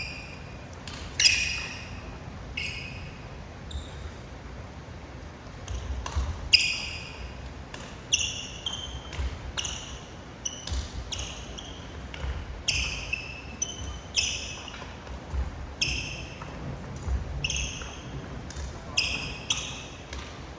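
Badminton rackets striking shuttlecocks during a fast push drill, a sharp hit about once a second, each with a brief high squeak of court shoes on the floor.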